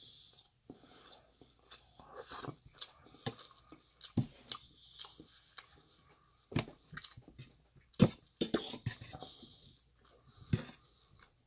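Chewing a mouthful of rice and chicken, with scattered wet mouth clicks, and a metal fork knocking and scraping against a metal bowl; the sharpest clink comes about eight seconds in.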